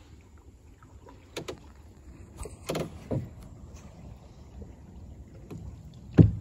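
A kayak's hull knocks and bumps several times: two quick knocks about a second and a half in, two more around three seconds, and the loudest single knock near the end.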